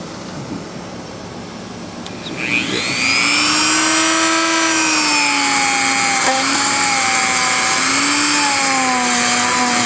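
A handheld rotary tool spins up about two and a half seconds in, then runs with a loud, steady high whine whose pitch wavers slightly as it grinds carbon build-up inside the XR250 cylinder head's exhaust port.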